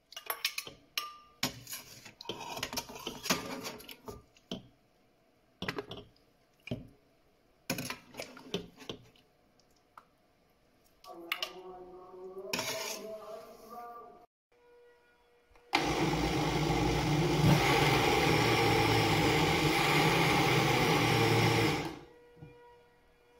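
A spoon knocks and scrapes as soft boiled tomatoes drop into a glass blender jar, with many short clicks and knocks. Then the electric blender runs loudly for about six seconds, stepping up in speed shortly after starting, as it purées the tomatoes into sauce.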